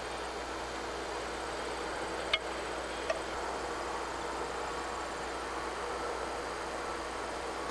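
Steady hiss-like outdoor background noise, with two short sharp clicks a little over two and three seconds in.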